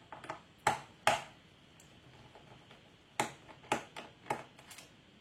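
Small sharp metal clicks and taps of a screwdriver working on the screws of a laptop's bottom panel, about five louder clicks with fainter ones between.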